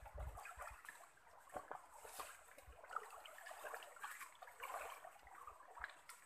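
Faint trickling of a shallow stream, with scattered small splashes and clicks.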